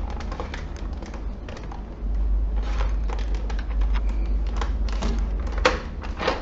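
Plastic clicks and rattles of a PlayStation 4 Fat's snap-fit top cover being slid and pried off its latches, with a sharper click about five and a half seconds in, over a low steady hum.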